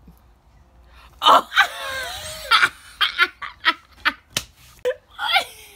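People laughing hard in repeated bursts, starting about a second in after a short quiet moment.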